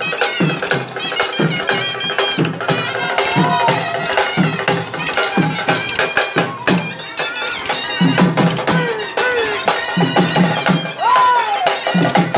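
Live folk procession music: shoulder-hung barrel drums beaten with sticks in a fast, loud, steady rhythm, with a high wavering melody line over it.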